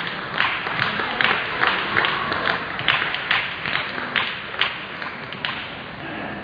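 Irregular sharp clicks of celluloid table tennis balls striking bats and tables, a few a second, echoing in a large sports hall.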